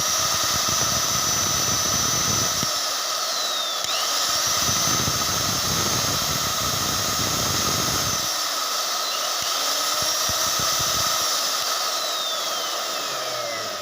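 Mixer grinder's universal motor running with no jar, a steady high whine. Its pitch glides down and climbs back twice, then falls away near the end as it winds down. It runs smoothly, without vibration or the earlier 'ghar ghar' rumble, on freshly replaced bushes.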